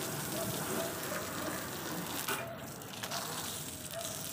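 Water from a hose pipe spraying onto a car's body panels and splashing onto the wet paving, a steady hiss that briefly drops off about halfway through.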